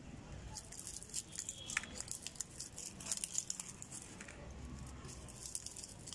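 Old copper winding coils and their paper slot insulation being pulled out of an electric churner motor's stator with pliers, as the stator is stripped for rewinding: a string of irregular scratchy clicks and crinkles.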